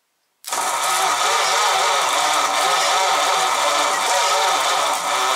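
Starter motor cranking a 1937 Ford flathead V8 with a fast, even churn, starting about half a second in and cutting off abruptly at the end; the engine does not catch and run.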